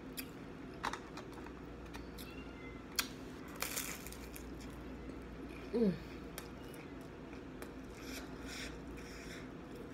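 Eating a fried spring roll: a crisp bite about three and a half seconds in, with small clicks of chewing and mouth sounds around it. A short falling hum of the voice near six seconds.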